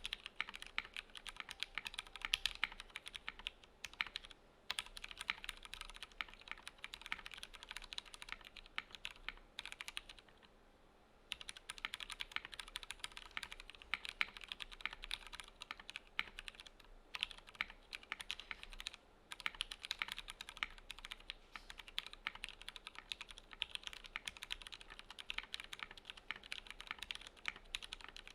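Continuous fast typing on a Swagkeys Shelby 80 gasket-mount mechanical keyboard with aluminium plate, lubed franken switches (Razer orange stems in Cherry MX Black housings) and thick CRP R4 keycaps, with brief pauses, one of about a second and a half near the middle.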